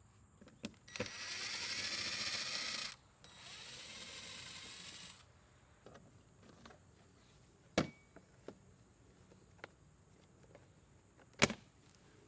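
Two bursts of a whirring, hissing mechanical sound about two seconds each, the second quieter, followed by scattered clicks and two sharper knocks.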